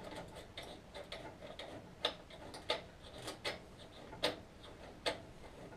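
Sharp clicks and light ticks from hands working on a petrol lawnmower's parts: faint at first, then a louder click about every three-quarters of a second from about two seconds in.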